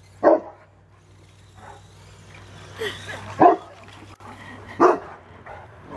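St. Bernard barking three times in short single barks, one near the start and two in the second half.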